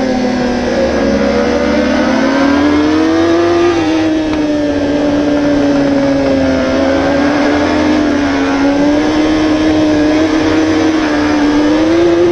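Kawasaki superbike's inline-four engine at racing revs, heard from on board with wind rush, its pitch dipping and climbing as the throttle is worked through a run of bends. The note sags about a second in, climbs around three and a half seconds, holds, and rises again near the end.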